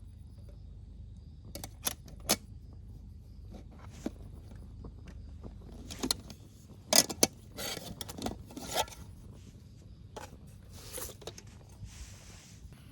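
Objects being handled: irregular clicks, clinks and scrapes, sparse at first and busiest in the middle, over a steady low rumble.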